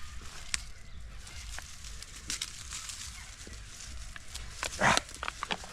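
Irregular crunching and snapping of sticks and leaf litter, with a louder rustle about five seconds in.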